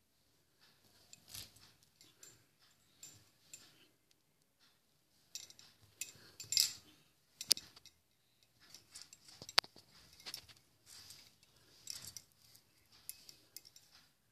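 Plastic beads clicking and rattling lightly as they are picked up on a needle and threaded, in irregular small clicks with a few sharper ticks, the sharpest about nine and a half seconds in.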